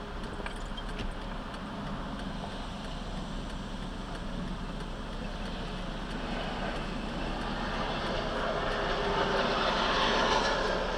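Steady road and engine noise of a moving car, heard from inside the cabin, swelling to its loudest near the end.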